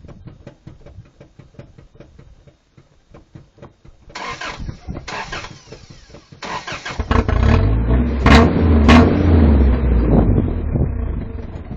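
Car engine being cranked by the starter in three short bursts, catching about seven seconds in, then revved up and settling back. Faint rapid clicking comes before the cranking.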